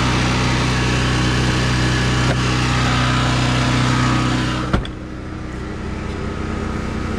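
Portable generator engine running steadily and loudly inside an open, insulated shed. About four and a half seconds in, the shed lid is shut with a single knock, and the engine sound drops to a quieter, muffled running as the insulated enclosure closes around it.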